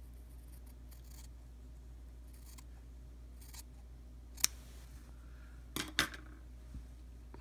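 Small scissors snipping through a strip of cotton wick pad: a series of quiet cuts, the sharpest about four and a half seconds in.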